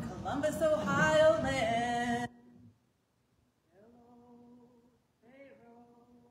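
Unaccompanied singing voice. A loud phrase of song cuts off about two seconds in, and after a short pause come two softer, steadily held sung notes.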